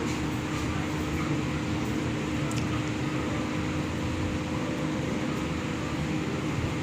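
Steady room noise: a constant mechanical hum with a faint hiss, like air conditioning running.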